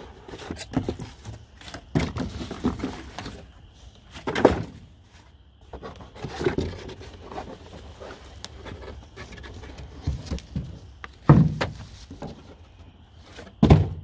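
Corrugated cardboard being handled as a large box is opened: flaps dragged and folded back, with scraping, rustling and a few dull thumps, the loudest of them late on.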